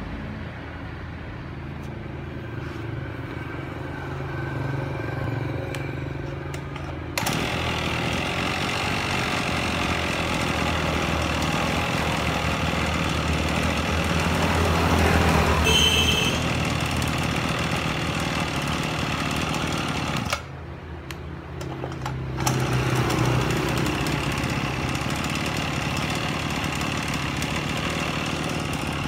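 Small two-stroke engine of an Echo 26 brush cutter idling steadily. A louder steady noise joins over it about seven seconds in, drops away for a couple of seconds around twenty seconds in, then returns.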